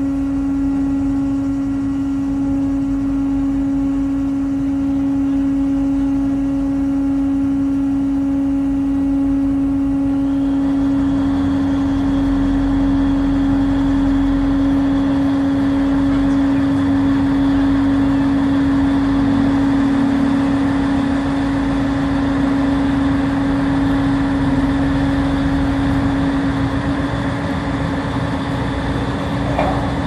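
Car ferry's engines running with a steady drone on one deep hum; about ten seconds in a rushing noise and a heavier low rumble join it as the ship manoeuvres toward the quay.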